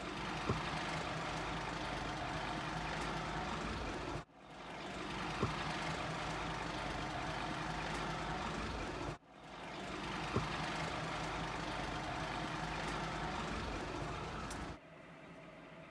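A parked fire engine's engine idling steadily. The sound cuts off abruptly and starts again twice, with a short click soon after each start. Near the end it drops to a much quieter steady hum.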